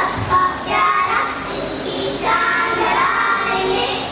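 Young children singing a song in short phrases.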